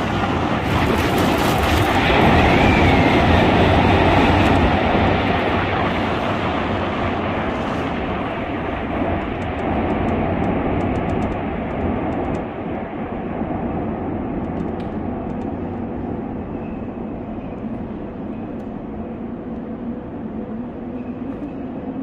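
SRT high-speed train running through an underground station without stopping: a loud rush of wind and rail noise that peaks a few seconds in, then slowly dies away, with faint scattered clicks partway through.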